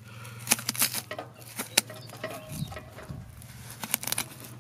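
Butchering knife cutting the back strap away from a hanging wild boar carcass: irregular sharp clicks and scrapes as the blade tip works along the backbone.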